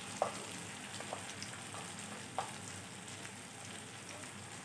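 Onion-tomato masala frying in oil in an iron kadhai, a steady sizzle with a few short sharp clicks.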